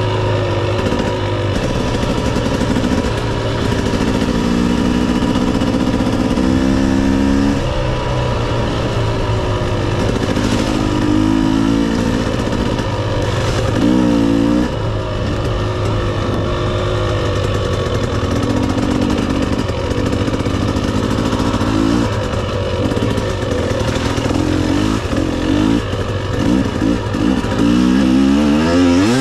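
Dirt bike engine under way, its pitch repeatedly climbing and dropping back as the throttle is opened and rolled off.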